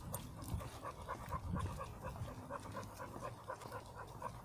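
An American Staffordshire Terrier panting hard and fast, about four breaths a second, worked up after a short run on the leash.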